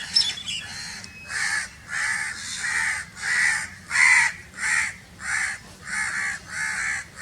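A crow cawing over and over, about ten harsh caws evenly spaced roughly a second and a half to two a second apart, starting about a second in. A few high thin chirps sound briefly at the start.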